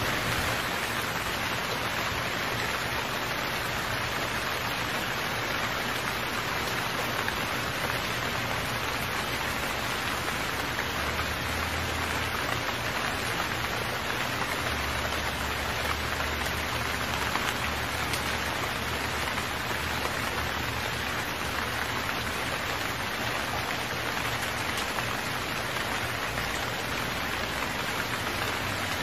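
Heavy rain falling steadily, an even, unbroken rush of drops.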